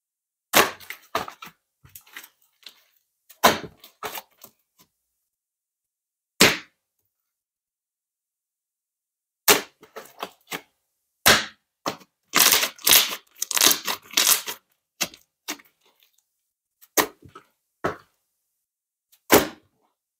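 Puffy slime squeezed and folded by hand, trapped air pockets popping with sharp crackling clicks. The pops come in short clusters with silent gaps between them, busiest a little past halfway through.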